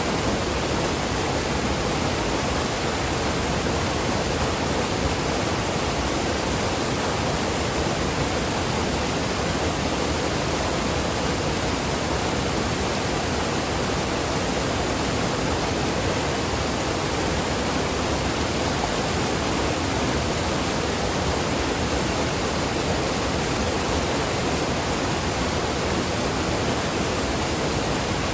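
Rushing water running steadily, a continuous even rush with no splashes or breaks standing out.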